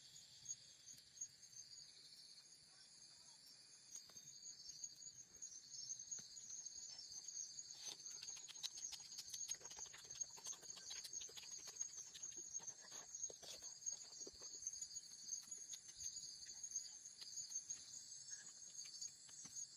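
Insects chirping in a faint, steady, high pulsing trill, with scattered soft clicks and rustles around the middle.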